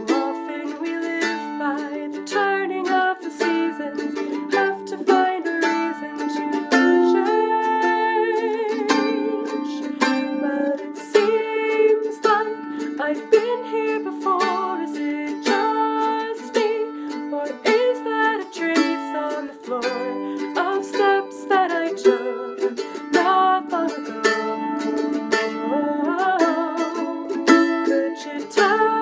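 A woman singing a slow song while strumming a small acoustic stringed instrument, with regular strummed chords under her voice.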